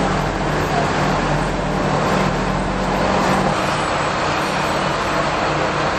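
Tango Railway Ao-Matsu diesel railcar idling at the platform: a steady, low engine drone that shifts slightly about three and a half seconds in.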